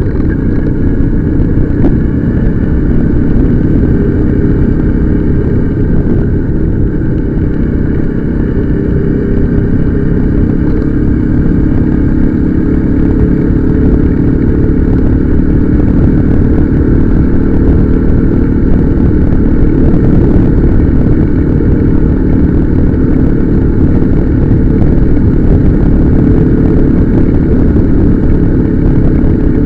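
Motorcycle engine running steadily while riding, over a heavy low rumble, its pitch rising gradually through the middle of the stretch.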